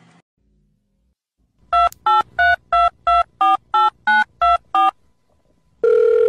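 Touch-tone telephone keypad beeps dialing a number: about a dozen short two-note tones of changing pitch, three or four a second, starting about two seconds in. Near the end a steady telephone tone begins.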